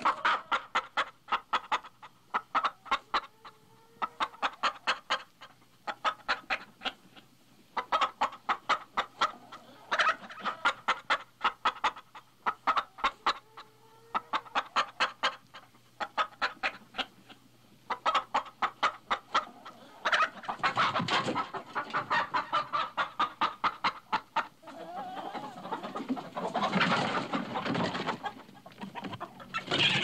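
Hens clucking in rapid runs of short clucks, grouped in bursts with brief gaps between them. About twenty seconds in, it changes to a busier, denser recording of chickens clucking over one another.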